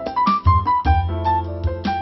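Background music: a keyboard melody with a bass line and a steady beat.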